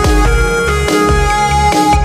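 Electronic music: a steady beat of regular drum hits under held synth notes and a deep bass.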